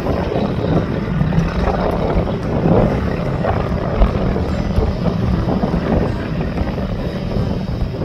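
Wind buffeting the microphone: a steady, irregular low rumble.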